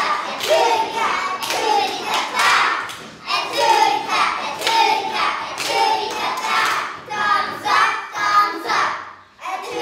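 A group of young children singing a song together, with hand claps among the singing.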